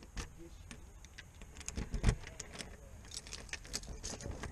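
Scattered light clicks and rattles of handling or movement, with one louder thump about two seconds in.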